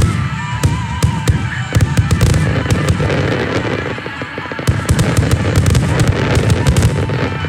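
Dense barrage of fireworks shells bursting: rapid sharp cracks and pops over a continuous low booming rumble. It eases off briefly about four seconds in, then builds again.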